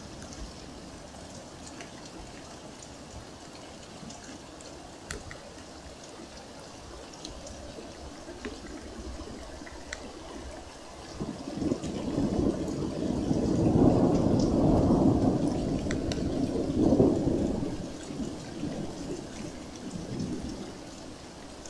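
Thunder rumbling over steady rain: a low roll builds about halfway through, swells to two peaks and dies away a few seconds before the end.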